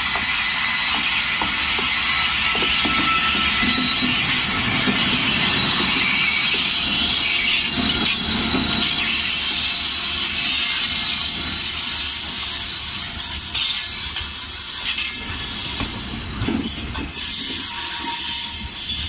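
WAP-7 electric locomotive and LHB passenger coaches rolling past close by: a loud, steady rush of wheel-on-rail noise over a low rumble.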